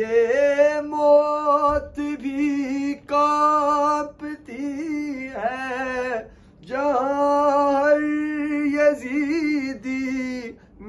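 A man's solo voice reciting in a melodic, unaccompanied chant, holding long notes that waver and bend in pitch. There is a short pause for breath about six seconds in and another near the end.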